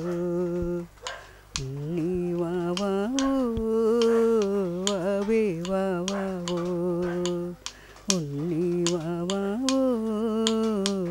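A woman singing a slow melody unaccompanied, in long held notes with a wavering pitch, breaking off briefly about a second in and again near eight seconds. A few sharp clicks sound here and there.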